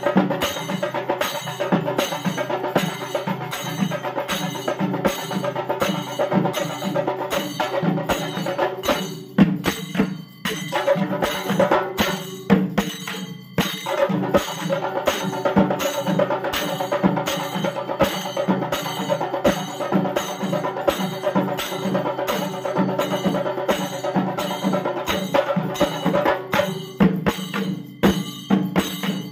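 Rope-laced, double-headed temple drum beaten in a fast, even rhythm, with a steady ringing metallic tone underneath. The beating breaks off briefly twice, about nine and thirteen seconds in.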